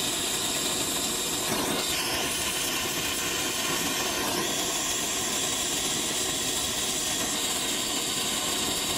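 Oxy-acetylene torch flame hissing steadily as it heats the brazed copper joints of a heat pump reversing valve to unsweat the old valve.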